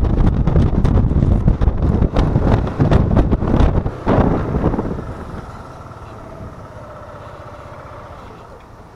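Wind buffeting the microphone while riding a Yamaha XMAX 125 scooter, with its engine running underneath. About five seconds in the noise drops away sharply, leaving a quieter steady hum.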